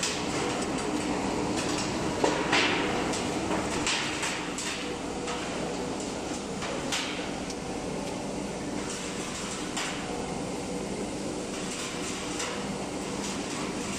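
Stainless steel tank rib-rolling machine running as its grooved rollers press strengthening ribs into the tank shell: a steady motor hum with scattered metallic clicks and knocks, the loudest about two seconds in.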